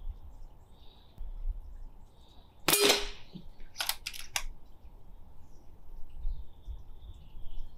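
Single shot from a Brocock Sahara XR PCP air rifle fired without its silencer, a sharp crack that is quite a bit louder than with the silencer on. About a second later come three quick clicks.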